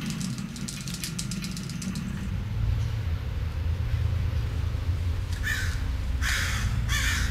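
Quick clicks over a low hum for about two seconds, then a steady low outdoor rumble with three short, harsh bird calls near the end.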